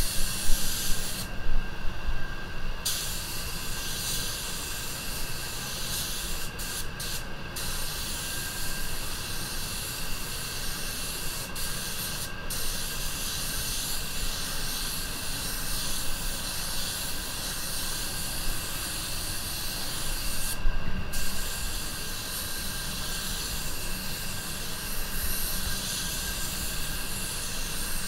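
Anest Iwata WS400 Supernova 1.3 spray gun spraying clear coat: a steady hiss of air and paint that breaks off briefly several times between passes, the longest gap about a second in. A low rumble runs underneath.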